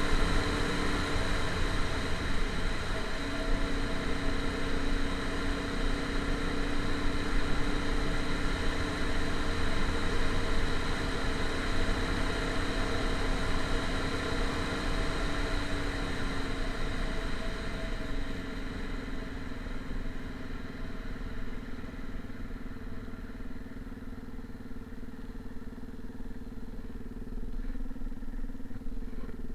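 A motor vehicle's engine runs steadily, with a constant hum, then gradually grows fainter over the second half.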